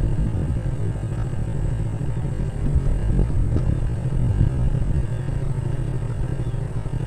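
Steady low rumble of a vehicle in motion, heard from on board as it travels along a narrow paved lane.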